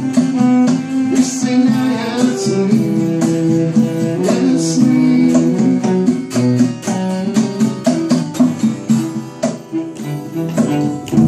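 Live acoustic music: a guitar played with rapid strokes while a cello plays along in sustained notes.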